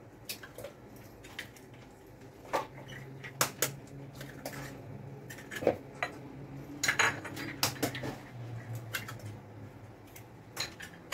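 Eggs being cracked one after another on the rim of a plastic mixing bowl and handled over a ceramic plate: a series of separate sharp taps and clicks.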